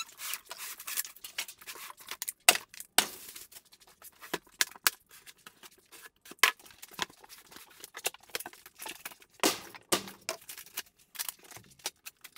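Cardboard and plastic packaging being handled: an irregular run of short crackles, scrapes and knocks as plastic wrap rustles, a utility knife cuts the packing straps and cardboard box flaps are pulled open.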